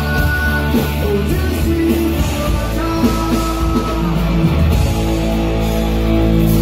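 Live rock band playing: acoustic guitar strummed over electric bass and drums.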